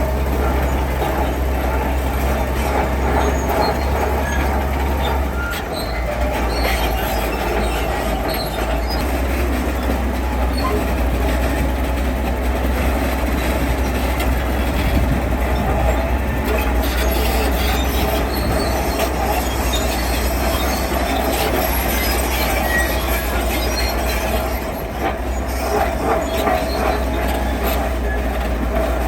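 Heavy earthmoving machinery working: a steady diesel engine drone with scattered metallic clanks and rattles.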